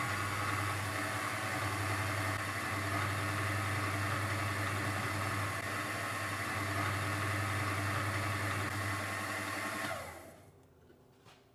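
Small manual benchtop milling machine running steadily with its spindle at about 480 rpm while a drill is fed down into a metal workpiece; the hum stops abruptly about ten seconds in.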